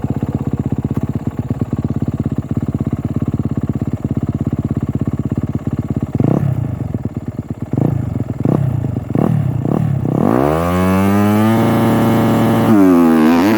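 A dirt bike engine idles with rapid even pulses, then is blipped several times. About ten seconds in it revs up for a launch off the start, the pitch climbing and holding high. Near the end it drops and climbs again, as at a gear change.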